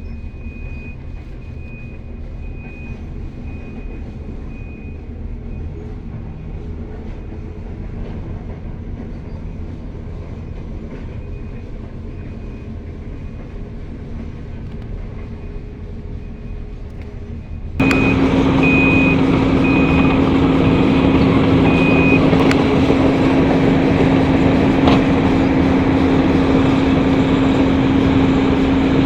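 Diesel engine of a large Tata Hitachi Zaxis 870H excavator running steadily, with a travel alarm beeping repeatedly. About eighteen seconds in, the engine sound suddenly becomes much louder, with a strong steady hum. The beeping stops a few seconds later.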